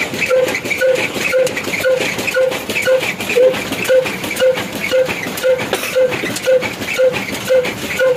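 Mustard oil expeller running under drive from an old 22 HP black diesel engine: a steady, even mechanical beat about twice a second, each beat carrying a short pitched knock or squeak, over a fine continuous clatter.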